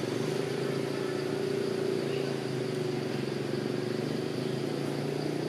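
A motor vehicle's engine running steadily, a low even hum that sets in at the start and stops near the end.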